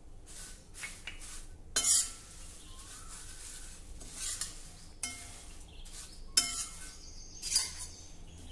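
A flat spatula stirring thin flattened rice (poha) in a stainless-steel kadhai, scraping and clinking against the pan, with several sharper scrapes along the way. The poha is being dry-roasted on a low flame until crisp.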